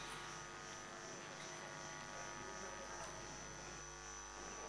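Faint steady electrical hum and hiss with no distinct events: background room tone.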